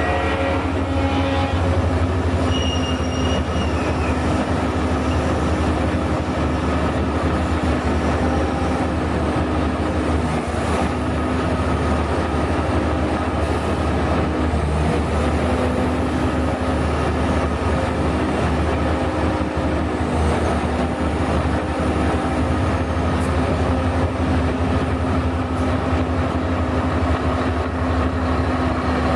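Heavy diesel logging machinery running steadily, a continuous low engine drone with a steady hum above it that dips slightly under changing load.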